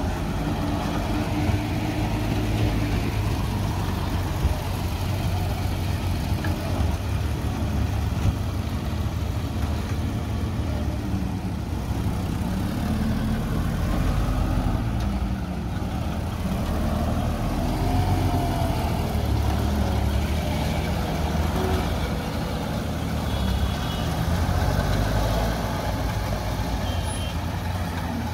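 Heavy goods truck's diesel engine running at low speed while the truck manoeuvres slowly, its pitch rising and falling a little with the throttle.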